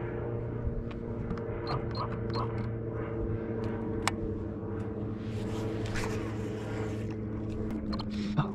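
Small fishing boat's motor humming steadily as the boat moves along slowly, with a few sharp clicks from rod and reel handling.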